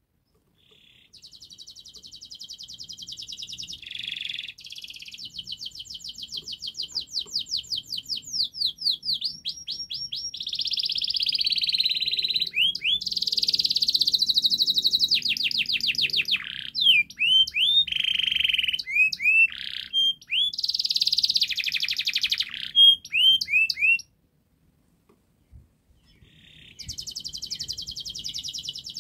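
Domestic canary singing a long, varied song of rapid trills and rolls mixed with rising whistled notes. The song breaks off about 24 seconds in and starts again a few seconds later.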